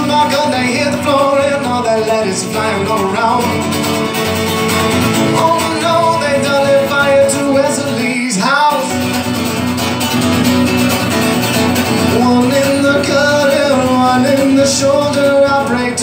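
Live music: a solo acoustic guitar played with male singing.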